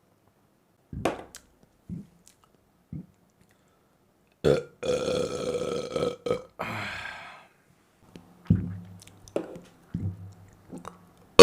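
A person burping: a few small clicks and gulps, then a long pitched burp about five seconds in, followed by a shorter one and a few short low burps near the end.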